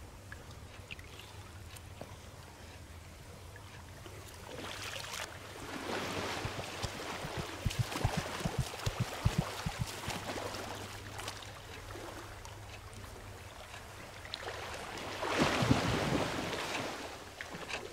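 A swimmer's front-crawl strokes splashing through pool water, swelling twice, loudest in a run of sharp slaps about halfway through and again near the end. A steady low hum sits underneath.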